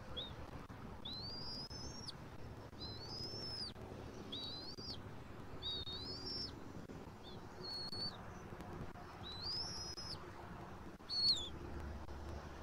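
Bald eagle calling: a series of about seven high, thin whistled notes, each slurring up and then holding, about one every second and a half.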